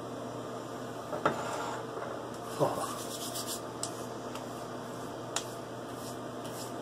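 Hands patting and rubbing alcohol-based aftershave splash onto a freshly shaved neck and face: soft skin-on-skin rubbing with a few sharp pats, over a steady low hum. A man lets out a short "oh" about two and a half seconds in.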